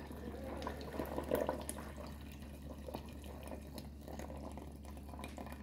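Thick blended fruit juice pouring in a steady stream from a blender jug into a pot already part-full of juice: a faint, even splashing trickle.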